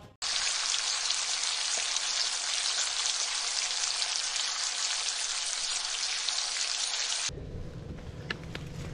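Bacon sizzling in a pan, a dense steady hiss that starts abruptly and cuts off about seven seconds in. It is followed by the quieter, low rumble of a mountain bike rolling along a dirt trail, with a few faint ticks.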